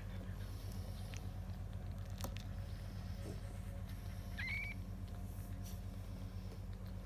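A newborn French bulldog puppy gives one short, high squeak that rises and then holds, about four and a half seconds in, over a steady low hum and faint scuffling clicks.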